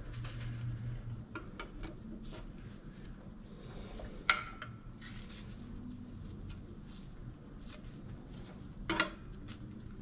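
Faint clicks and knocks of hands at work on the brakes, with two sharper clicks about four and nine seconds in.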